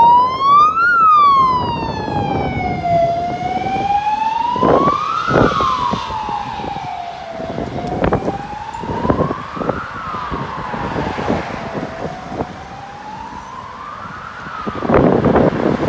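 Ambulance siren on a Queensland Ambulance Service van sounding a slow wail that rises and falls about every four and a half seconds, growing fainter as the van drives away. Near the end a car passes close by with a rush of road noise.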